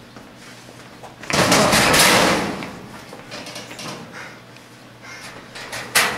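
Steel school locker door banged shut a little over a second in, a loud metal clang with a rattle that dies away over about a second. Lighter metal clatter follows, then a sharp clack of the locker handle near the end.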